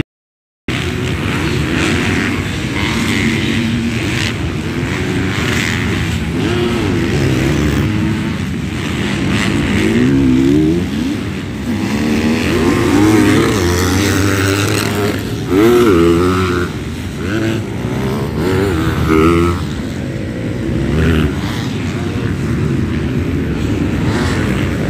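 Several MX2-class motocross bikes run on the track, their engines revving up and down again and again as the pitch rises and falls. The sound cuts out completely for under a second at the very start.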